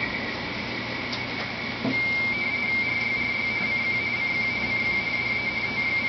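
RTTY (radioteletype) signal from a Kenwood TS-850S transceiver's speaker: a two-tone warble near 2 kHz, the mark and space tones alternating over receiver hiss. About two seconds in the signal becomes louder and cleaner.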